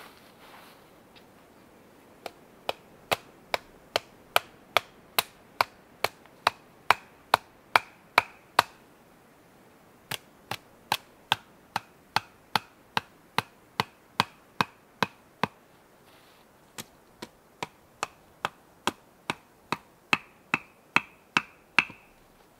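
Quick, evenly spaced blows of a hand tool on wood, about two a second, in three runs with short pauses between them. The later blows of each run take on a ringing note.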